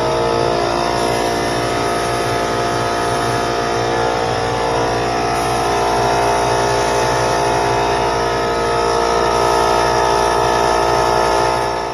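Small 21-gallon air compressor running steadily: a droning hum of many tones with an air hiss over it.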